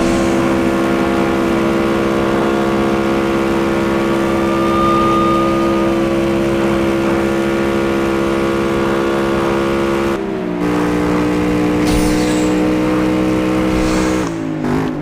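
Engine running at a steady fast idle after a hard start, its speed dropping in a step about ten seconds in and again near the end.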